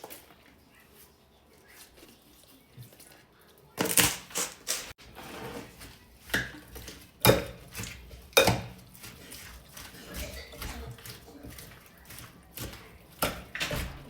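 Irregular sharp clicks and knocks, starting about four seconds in after a quiet stretch, like household clatter.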